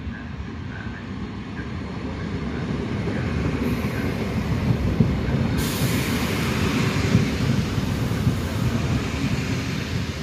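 Pair of ALn 668 diesel railcars passing close by, engine and wheel rumble building as they approach and go past. A rushing hiss joins in from about halfway through the pass.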